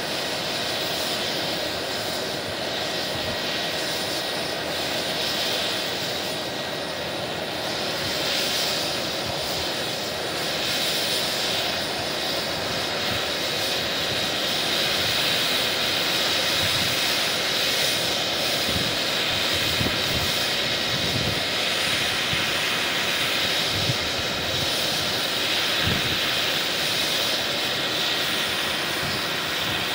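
JetCat PHT3-3 model turboshaft turbine of a large radio-controlled AW139 helicopter running steadily with its five-blade main rotor and four-blade tail rotor turning, a high turbine whine over the rotor noise. The sound grows louder about halfway through as the power comes up, and by near the end the helicopter is lifting off into a low hover.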